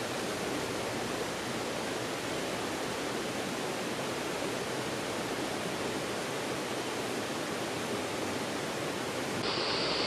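Steady rushing of a shallow stream riffle running over rocks. A little before the end it changes abruptly to a different rushing-water sound with a sharper hiss.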